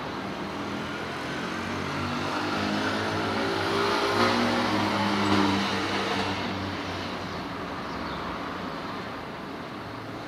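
A motor vehicle passes on the street: its engine hum and road noise grow louder, are loudest about four to five seconds in, then fade away.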